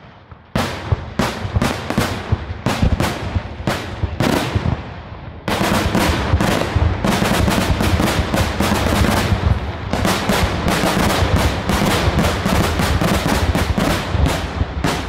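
Daytime fireworks: aerial shells bursting with loud bangs, at first separate reports about two or three a second, then from about five seconds in a dense, nearly continuous barrage of rapid bangs.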